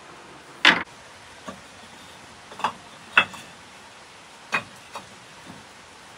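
About seven sharp knocks and taps at uneven intervals, the loudest about a second in and another just past three seconds.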